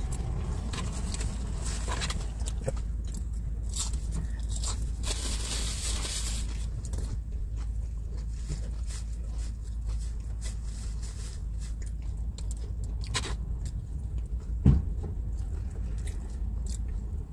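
Steady low rumble inside a minivan's cabin, with scattered light rustles and clicks, a short hiss about five seconds in, and a single thump near the end.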